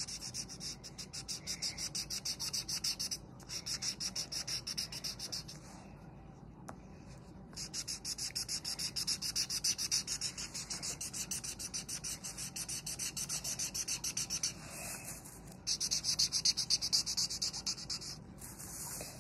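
A red felt-tip marker scratching quickly back and forth on paper as it colours in a drawing, in fast, regular strokes several a second. It stops briefly a few times, the longest pause a little after the middle.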